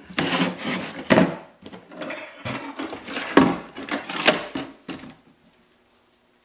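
Thick plastic juice jug being handled and lifted: a run of rustles and sharp plastic knocks, the loudest about three and a half seconds in, stopping about five seconds in.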